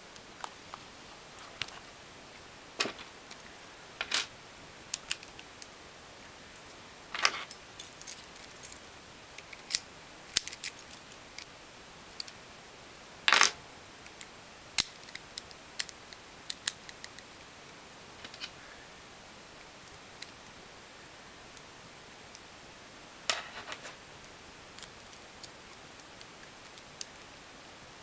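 A small Brinks padlock and metal lockpicks being handled: irregular sharp metallic clicks and clinks, with one louder clack about 13 seconds in and only a few faint clicks after about 24 seconds.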